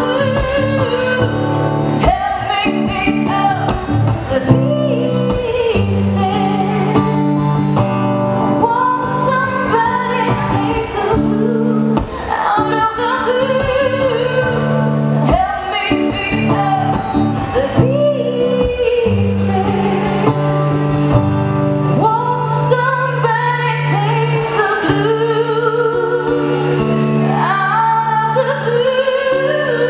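A woman singing a slow, emotional melody with wide vibrato over a strummed acoustic guitar, performed live through a PA.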